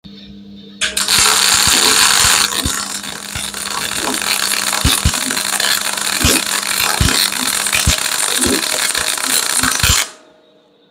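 Parkside PMSG 200 A2 MIG/MAG welder at its maximum setting of 160 amps and 23 volts. A steady hum is heard first; about a second in, the arc strikes. It runs for about nine seconds as a loud, continuous crackling hiss with scattered sharp pops, then stops abruptly.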